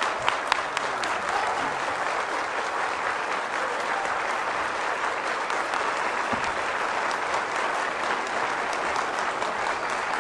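Audience applauding, dense overlapping clapping held at a steady level.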